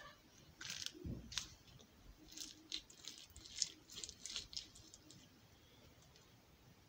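Slime being worked in the hands: a quick, uneven run of small crackly clicks and squelches, with a dull thump about a second in, stopping after about five seconds.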